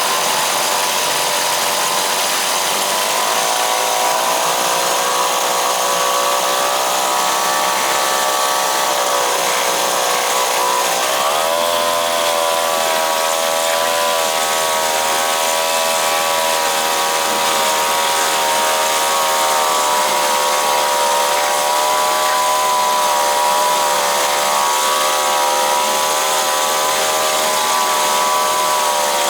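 Small two-stroke outboard motor running in gear in a test barrel, at a steady high speed with a slight waver; about eleven seconds in the engine speed dips briefly and picks back up.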